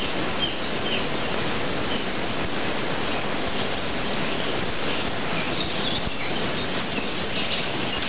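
A large swarm of Brazilian free-tailed bats in flight: a steady, dense chittering din with many short, high, falling chirps.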